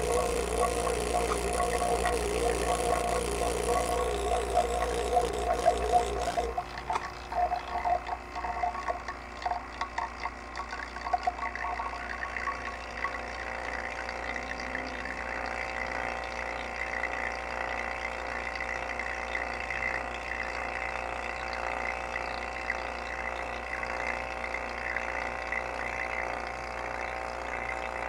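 Two-stage JB DVM-142JB vacuum pump running a test pull-down toward deep vacuum, in the low hundreds of microns. For about the first six seconds it runs louder with a wavering note. It then turns quieter and steadier, with a thin high whine over the hum.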